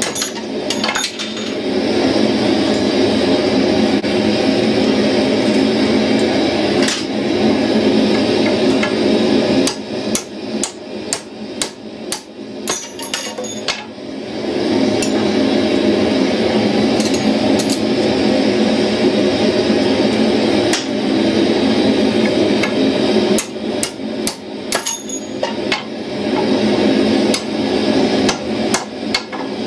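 Hand hammer striking red-hot steel stock on an anvil, in clusters of quick blows with pauses between, over a steady rushing roar from the lit forge.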